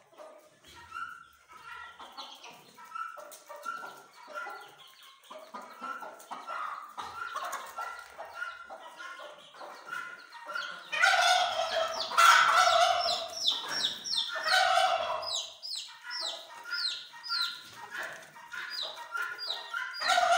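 Chickens clucking in a steady run of short repeated calls. A little past halfway, louder squawking calls take over for a few seconds, followed by a string of short, high, falling peeps.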